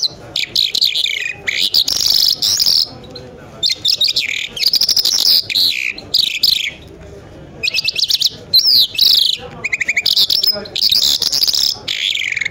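Caged lark singing: varied phrases of fast chirps, rattling trills and rising whistled notes, each a second or two long, broken by short pauses.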